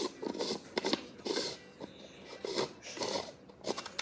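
3D-printed plastic dragon egg being twisted shut by hand: irregular scraping and clicking of plastic parts grinding against each other.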